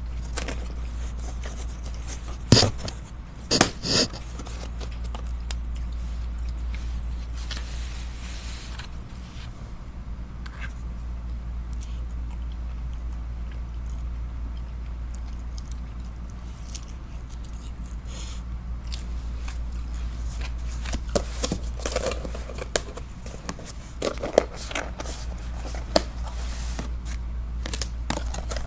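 Eating sounds: a plastic fork scraping and tapping in a takeout container and mouth chewing, with scattered sharp clicks and knocks, the loudest a few seconds in and more near the end. A steady low hum runs underneath.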